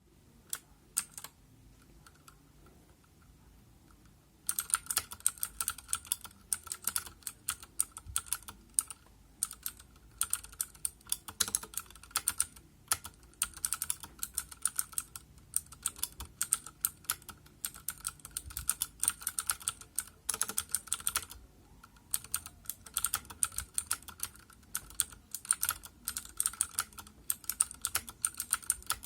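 Mechanical keyboard with clicky Cherry MX Blue switches: a few keystrokes, a pause of about three seconds, then fast continuous typing from about four seconds in, with a few brief breaks.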